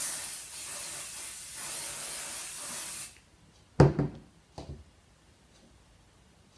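Aerosol can of fabric spray adhesive hissing in one steady spray for about three seconds. It is then set down on the table with a sharp knock, followed by a softer knock.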